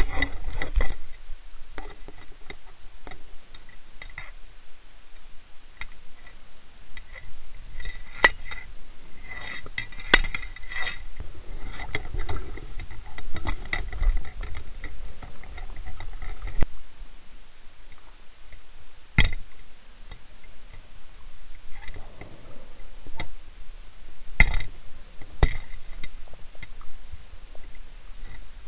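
Scuba diving heard underwater: the steady hiss and rumble of breathing through a regulator, with rough stretches of exhaled bubbles and a few sharp clicks and clinks a few seconds apart.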